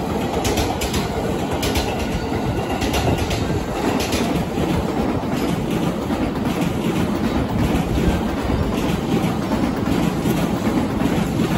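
Passing trains: an E233-series commuter train runs by with wheels clacking over rail joints, and partway through an N700-series Shinkansen takes over with a steadier rumble of wheels on rail.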